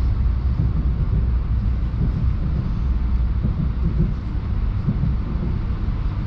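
Moscow Central Circle ES2G Lastochka electric train running at speed, heard from inside the passenger car as a steady low rumble.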